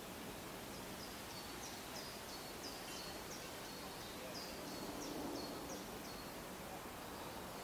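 A small bird singing a quick run of short, repeated high notes, about three a second, for around five seconds over steady outdoor background noise.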